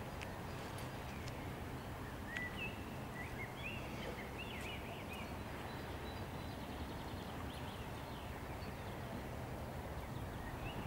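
Outdoor ambience: a steady low rumble, with a small bird giving a quick run of high chirps from about two to five seconds in.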